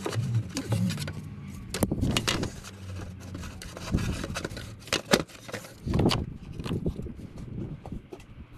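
Battery tray being worked into place in a car's engine bay: a series of irregular knocks, clicks and scrapes as it is pushed and seated.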